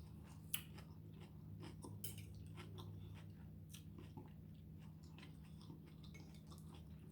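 Faint chewing close to the microphone: scattered soft mouth clicks, the sharpest about half a second in and another about two seconds in, over a low steady hum.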